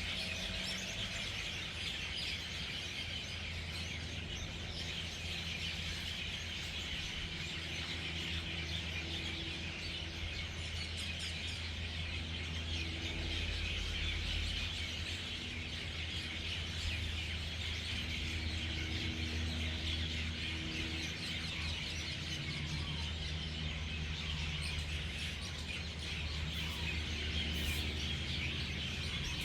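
Dense, continuous chorus of hundreds of birds chirping and chattering together as they gather at an evening roost, with a steady low rumble underneath.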